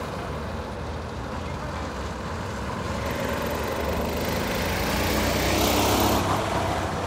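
Rental go-kart engines running on the track, a steady engine drone that swells as a kart comes closer, loudest about six seconds in, then falls back.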